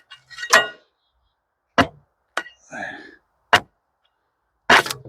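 Bark being pried and knocked off a scarlet oak log with a hand tool: about five sharp cracks and whacks at irregular intervals as chunks of bark break away.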